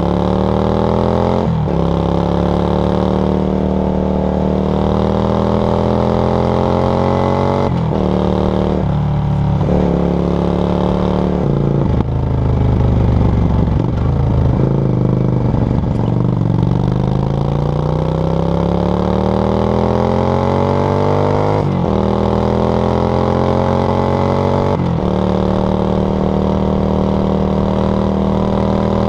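Yamaha XV535 Virago's air-cooled V-twin running through a SilverTail K02 aftermarket exhaust while riding, pulling up through the rev range and dropping back at each gear change, several times over. About halfway through the engine note turns rougher and a little louder for a few seconds before it climbs again.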